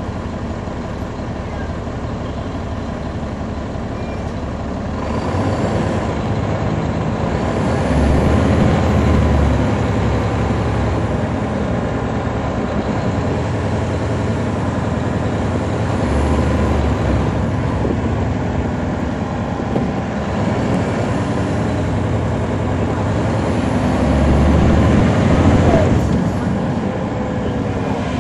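Caterpillar C13 ACERT inline-six diesel of a NABI 40-ft transit bus, heard from the rear seats, running steadily for about five seconds and then getting louder as the bus pulls away, with three separate swells in loudness through the ZF six-speed automatic.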